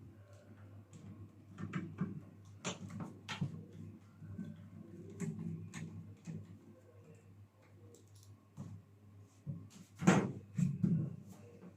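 Scattered clicks, knocks and light clatter from handling the microwave's casing and tools, with the loudest thump about ten seconds in, over a faint steady low hum.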